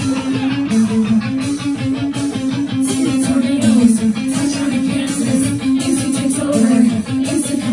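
Live rock band playing loud: an electric guitar riff over a steady beat, the high end getting brighter about three seconds in.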